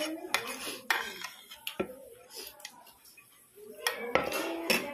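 Metal spoon scraping and clinking against a ceramic plate several times, busiest about half a second to a second in and again near the end.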